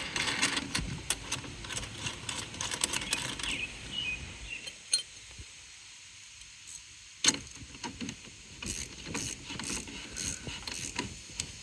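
Small metal hardware clicking and clinking as a lock washer and second nut are fitted onto a steel bolt, in irregular bursts with one sharper knock about seven seconds in.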